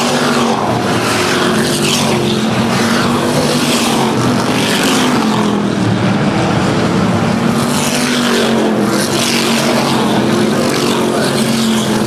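A field of street stock race cars running hard through a turn, their engines blending into a constant loud drone. Car after car passes close by every couple of seconds, each engine note swelling and falling away as it goes past.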